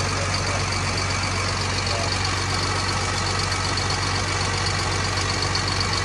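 Crane lorry's diesel engine idling steadily, a constant low hum.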